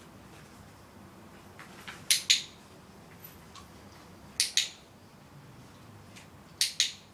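Dog-training clicker pressed three times, about two seconds apart, each a sharp double click-clack. The clicks mark the moment the dog gets into position.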